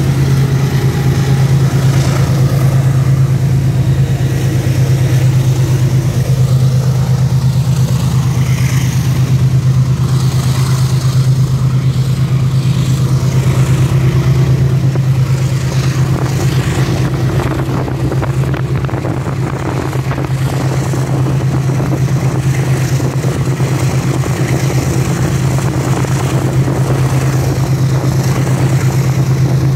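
Motorcycle engine running at a steady cruise, heard from the moving bike: a constant low drone with a rushing noise over it, easing slightly about two thirds of the way through.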